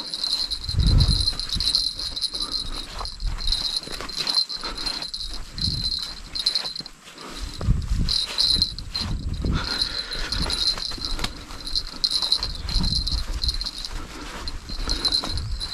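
Insects chirping in a steady, pulsing high buzz, with irregular low rumbling bumps underneath.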